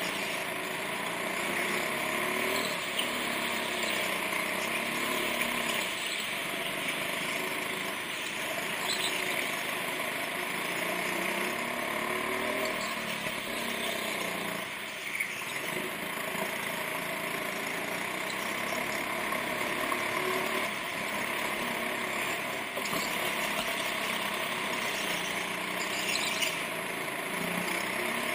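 Go-kart's small petrol engine heard onboard while lapping, its pitch rising and falling every few seconds as it accelerates out of and eases into the corners.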